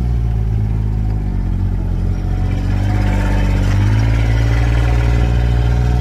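John Deere Gator utility vehicle's engine running steadily while driving over rough boggy ground, heard from inside the cab. The revs sag a little about a second in and climb again about four seconds in.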